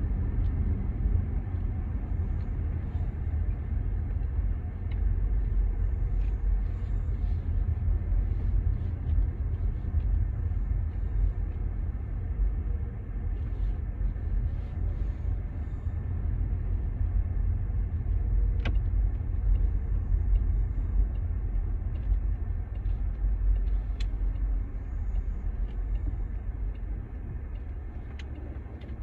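Steady low rumble of a car on the move, heard from inside the cabin: engine and road noise, with a couple of faint ticks.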